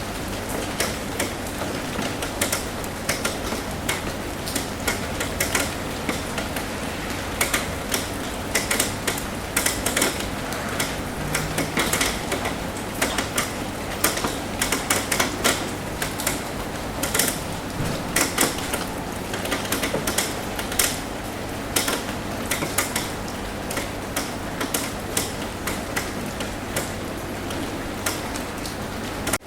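Rain falling on a roof: a steady hiss with many irregular, sharp taps of drops striking the surface.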